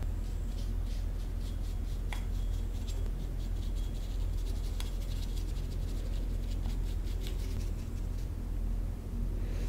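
Small bristle brush stroking and dabbing black liquid onto a thin metal lock plate: a run of light, scratchy brushing strokes over a steady low hum.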